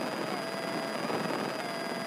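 Steady cabin drone of a Grumman light airplane's piston engine and propeller in flight, with a faint wavering tone running through it.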